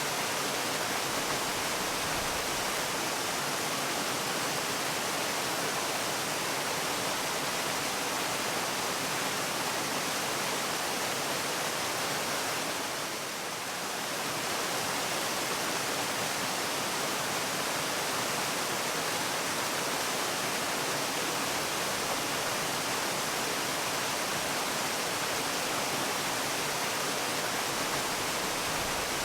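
Waterfall rushing steadily, an even hiss of falling water, with a brief slight dip in loudness about halfway through.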